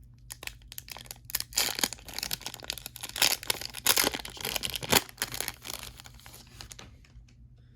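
A trading card pack wrapper being torn open and crinkled: a run of rips and crackles over about five seconds, loudest near the end of that run, then dying away.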